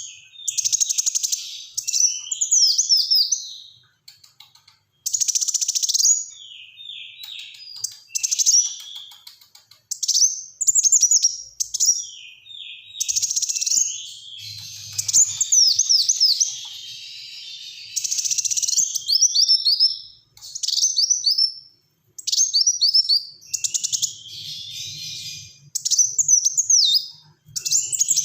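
Kolibri wulung sunbird singing in a busy, lively way: repeated bursts of rapid, high-pitched, falling notes packed closely together, with short pauses between phrases.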